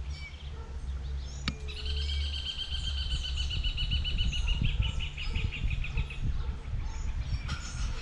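A bird sings one long, even trill of rapid notes, starting about two seconds in and lasting about four and a half seconds, with a few short chirps around it. A low rumble runs underneath, and there is a single sharp click about a second and a half in.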